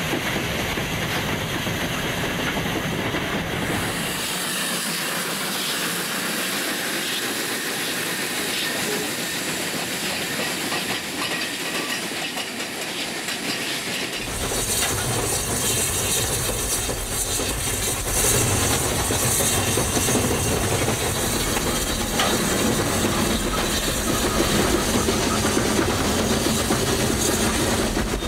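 A steam cogwheel train running, its wheels clattering on the rails and steam hissing. About halfway through the sound turns louder, with a strong hiss of steam and more rumble, as the train runs close by.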